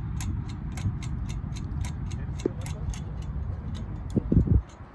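Ratchet wrench clicking at about four to five clicks a second as a nut is run onto a bolt, over a steady low rumble. A few louder low bumps come near the end.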